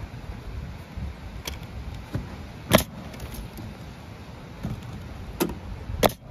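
Pneumatic coil roofing nailer driving nails through asphalt shingles: three sharp shots, the loudest about two and a half seconds in and two more close together near the end, over a low steady rumble.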